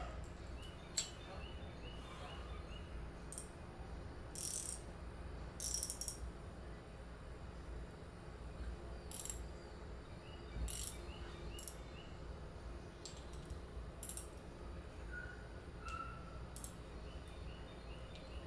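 A wrench clinking and scraping on a small steel fuel inlet fitting as a fuel filter is worked loose from it, in scattered clicks and short rasps. The filter is stuck fast, overtightened when it was fitted.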